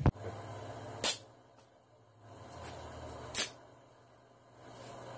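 Aluminium beer can being cracked open: a sharp pop with a short fizzing hiss, twice, a little over two seconds apart.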